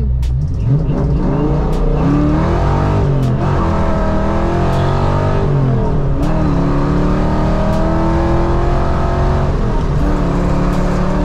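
1993 Mustang GT's 5.0-litre V8, fitted with Trick Flow 170 heads, a Trick Flow Track Heat intake and an Anderson N41 cam, heard from inside the cabin accelerating hard. The engine note climbs and then drops sharply at each of about three gear changes.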